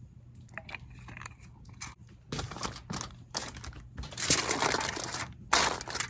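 Aluminum foil crinkling and crunching as a foil packet of vegetables is folded closed, in loud bursts starting about two seconds in.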